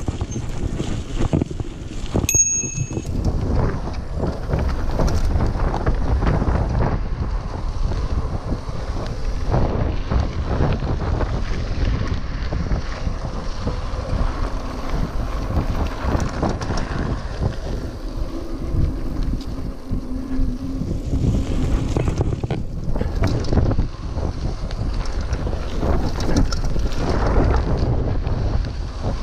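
Mountain bike riding over a dirt trail, rattling and knocking over bumps, with heavy wind buffeting the microphone throughout.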